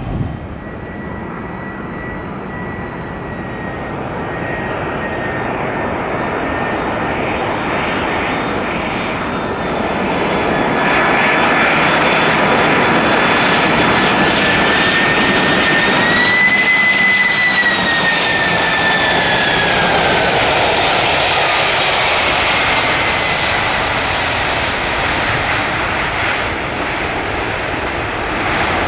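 A Boeing 747-400F freighter arriving, its four jet engines making a steady rushing noise with a high whine on top. The noise swells, and about seventeen seconds in the whine drops in pitch as the aircraft passes, then eases off near the end.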